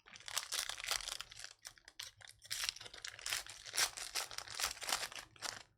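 Crinkling and tearing of a trading card pack wrapper being ripped open, a continuous crackle with brief dips.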